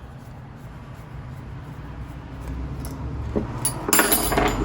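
Small clinks and rattles of metal and glass lamp parts being handled as a turn-signal lamp is taken apart, a few clicks then a busier cluster about four seconds in, over a low steady hum.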